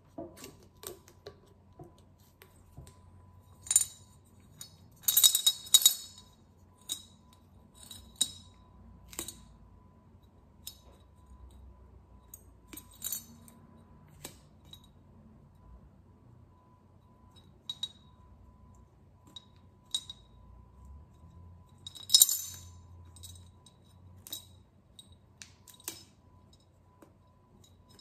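Old silver coins clinking and rattling inside a glazed ceramic coin bank as it is tipped and shaken, in short bursts of sharp clinks. The loudest bursts come about five to six seconds in and again about twenty-two seconds in.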